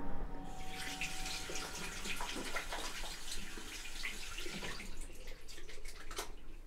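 Water running from a bathroom tap into a sink, splashing, with the flow cutting off suddenly about six seconds in.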